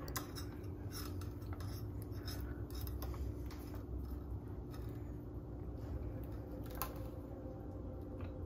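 Faint scratching and rubbing with scattered light clicks, over a low steady hum: gloved hands feeding a monofilament leader through a rigging tube inside a squid bait.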